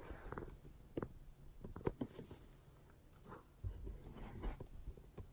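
Faint, scattered knocks and taps, about eight of them, from a camera phone being handled and set in place.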